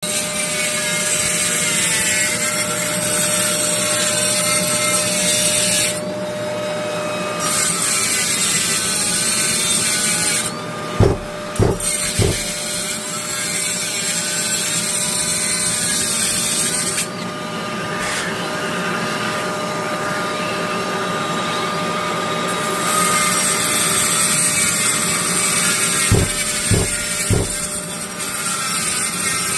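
Small power tool, most likely a compact 3-inch cut-off grinder, running and cutting with a steady whine and grinding noise. The cutting noise briefly thins out a few times, and two clusters of short knocks come about eleven seconds in and again near the end.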